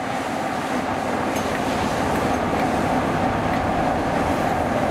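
Train running on the rails, a steady rumble with a steady whine above it, growing slightly louder.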